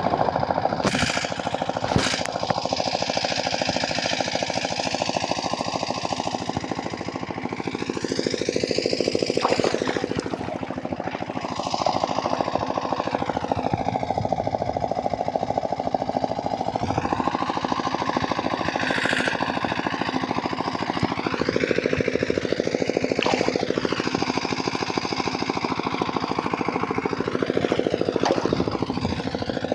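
A small engine running steadily with a rapid, even chugging, its tone slowly sweeping up and down.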